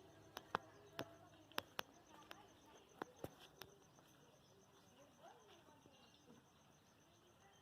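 Faint, steady pulsing insect trill, with a scatter of sharp clicks in the first few seconds.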